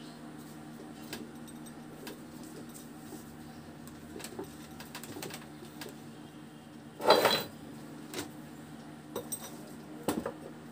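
Small metallic clicks and clinks from a hand-turned threaded-rod screw press as it pushes the shaft out of an e-rickshaw motor's magnet rotor, over a steady low hum. About seven seconds in there is one louder clatter lasting about half a second, followed by a few more clicks.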